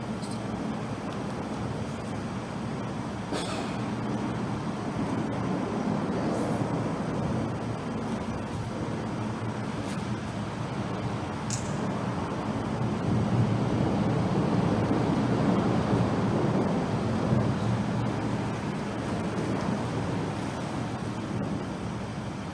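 Road traffic passing, a steady low rumble that swells about thirteen seconds in as a heavier vehicle goes by, with a few faint clicks.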